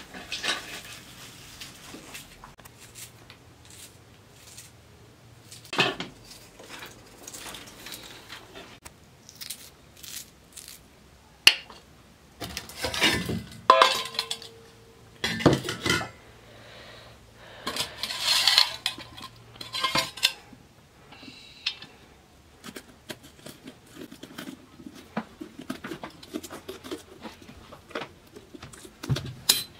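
Stainless steel bowls and a kitchen knife clinking and clattering in irregular knocks, with a few louder clusters of clatter in the middle, as vegetables are handled and cut.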